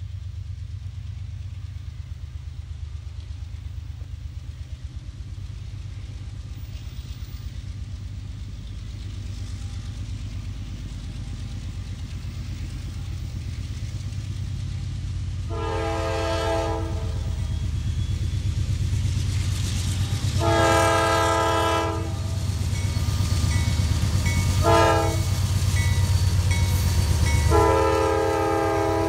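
Norfolk Southern diesel locomotives approaching, their low engine rumble growing steadily louder, then sounding a chime horn in the grade-crossing pattern: two long blasts, one short and a final long one that is still sounding as the locomotives come past.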